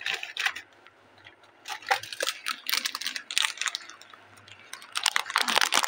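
Plastic snack wrappers crinkling and rustling in the hand as packets of chocolate cake are picked up and handled, in irregular bursts that are densest near the middle and toward the end.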